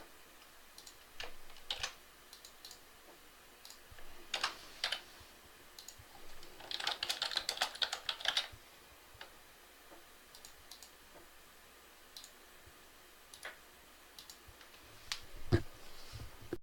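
Typing on a computer keyboard: scattered single keystrokes with a quick flurry of typing in the middle, and one louder thump near the end.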